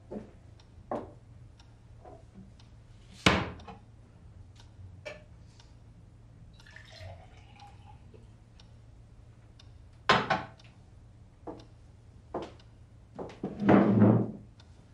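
Scattered knocks and clicks of objects being handled, with sharp ones about three and ten seconds in and a longer clattering rustle near the end.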